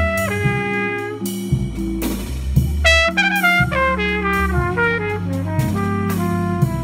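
Trumpet playing a bossa nova melody over keyboard chords and bass with light drums; about three seconds in it plays a quick run of falling notes.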